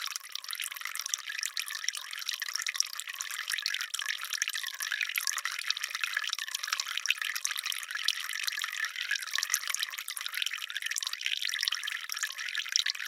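Water dripping and trickling: a dense, continuous patter of small drops, light and thin with no low rumble.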